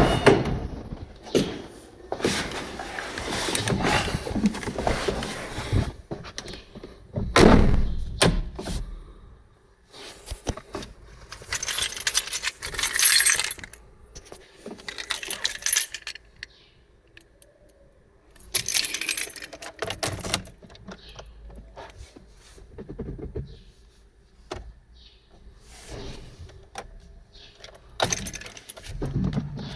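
Hand-handling noises in irregular bursts: metallic clinks, rattles and rustling, with a jingle of keys.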